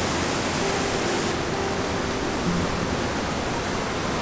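Steady rush of floodwater pouring through a dam's open spillway gates and churning below; the hiss dulls a little about a second in.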